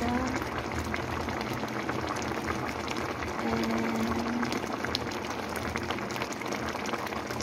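Vegetable stew in tomato sauce boiling in a pan: a steady hiss of many small popping bubbles.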